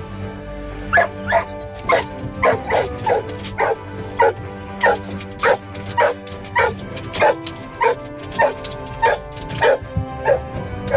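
A police K9 dog barking steadily over and over, about two barks a second, with background music underneath.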